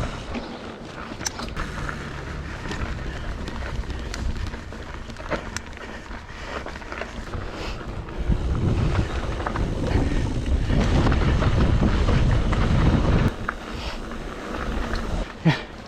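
Wind buffeting the action-camera microphone while riding a mountain bike, with gusts that grow stronger in the middle and scattered short clicks and rattles. A sharp knock comes near the end.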